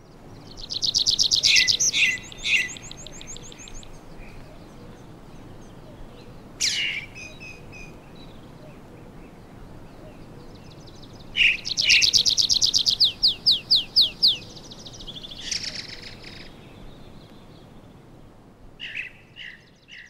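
Songbirds singing: several bursts of rapid, high trills and chirps, with quieter calls between them and a faint steady hiss beneath. The loudest trills come about a second in and again past the middle.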